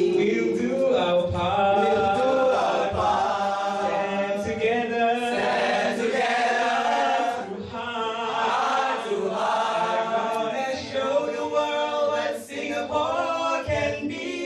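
Young male voices singing a song together into handheld microphones, holding long, sustained notes.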